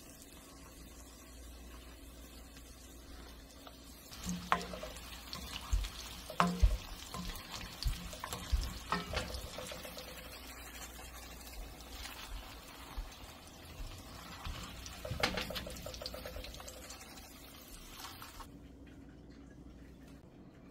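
Breaded cauliflower florets frying in hot oil, a steady sizzle, with sharp clicks and knocks of a slotted spoon against the pan from about four seconds in as the florets are lifted out. The sizzle cuts off near the end.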